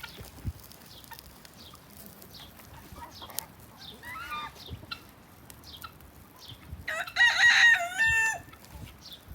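A rooster crowing once, a loud call lasting about a second and a half that starts about seven seconds in, with a shorter, fainter fowl call near the middle. Small high bird chirps repeat about twice a second in the background.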